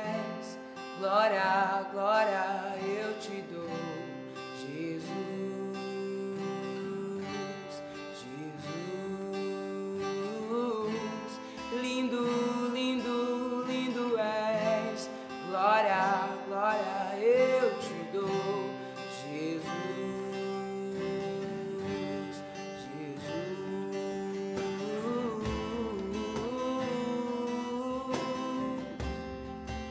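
Steel-string acoustic guitar strumming chords in a worship song intro, with a man singing in stretches over it, loudest about a second in and again around fifteen seconds in.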